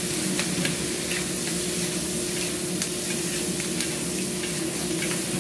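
Prawns, celery and asparagus lettuce stem sizzling in a wok as they are stir-fried, with scattered clicks and scrapes of the spatula against the wok over a steady low hum.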